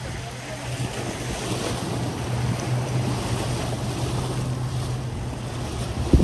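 Sea waves washing against a rocky shoreline, with wind buffeting the microphone over a steady low hum. A sharp thump comes near the end.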